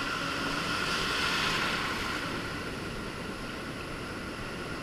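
Ocean surf washing around the shallows, with wind buffeting the microphone; the rush of water swells briefly about a second in.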